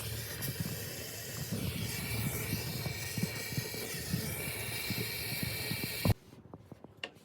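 A steady, loud hiss with an irregular low crackle underneath, which cuts off suddenly about six seconds in.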